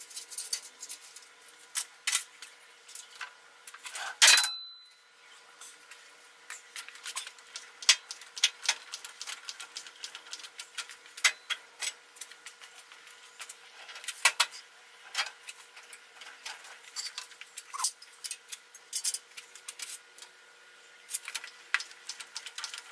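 Metal clinking and knocking as hand tools and loose steel parts are handled against a steel truck frame: scattered light clicks and taps, with one loud clang about four seconds in that rings briefly.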